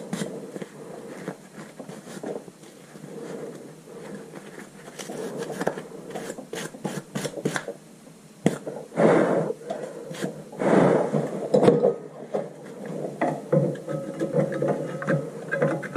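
Scraping and rubbing of hand tools on brake parts, with many small clicks and knocks. There are two longer, louder scraping passes about nine and eleven seconds in.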